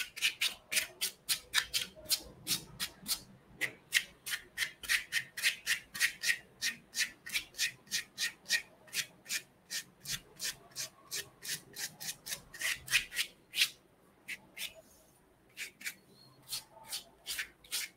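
A large dry brush swept back and forth over watercolour paper in quick, light strokes, about three or four strokes a second, pausing briefly near the end. The dry bristles are blending the still-unblended watercolour washes into each other.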